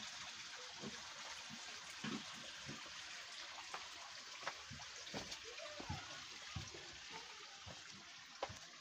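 Steady rushing of running water, with soft footsteps on a dirt path at a walking pace.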